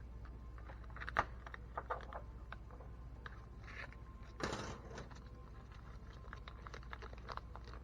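Small screws and plastic RC truck parts clicking and tapping as they are handled, with a brief rattle or rustle about four and a half seconds in, over a steady low hum.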